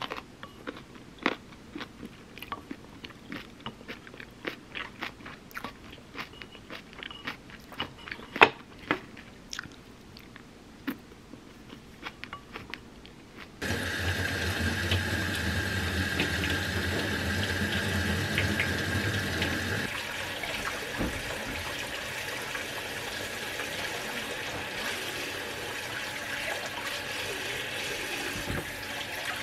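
Light clicks and scrapes of a wooden spoon in a ceramic bowl of kimchi fried rice, with chewing. About halfway through, a kitchen faucet starts running steadily into a stainless-steel sink as sweet potatoes are rinsed under it.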